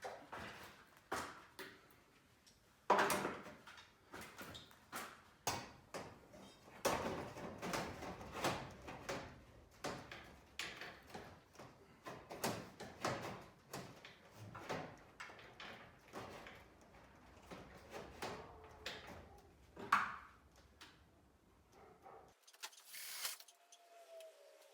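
Irregular knocks and clatter of work on a garage door: a steel bar and hardware being handled and set against the door panels, with louder knocks about three seconds in and again near twenty seconds.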